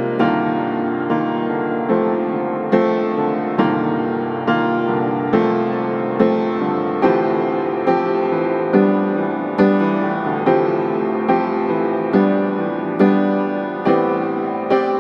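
Background piano music, with a new note or chord struck a little more often than once a second.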